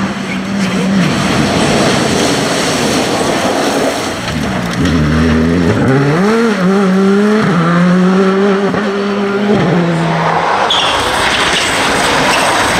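Rally car engines running hard through corners, one rising in pitch as it accelerates about halfway through and then holding steady, with tyre and gravel noise under it. A second car takes over near the end.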